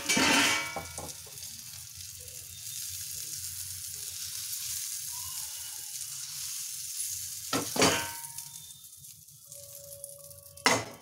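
Hot oil sizzling steadily in a non-stick frying pan as a cabbage-and-egg pancake is slid out onto a plate. The pan knocks sharply at the start, again about two-thirds of the way through and once more near the end, and the sizzle fades over the last few seconds.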